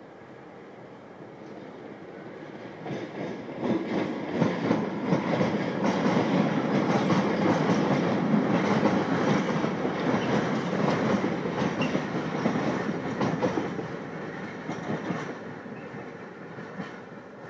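Railway tank wagons rolling past on the yard tracks, their wheels clattering over rail joints and points. The rumble builds about three seconds in, is loudest through the middle, and dies away near the end.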